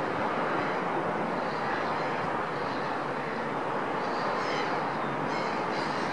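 Steady wash of distant city noise, traffic heard from high above the rooftops, with a few faint high chirps about four and five seconds in.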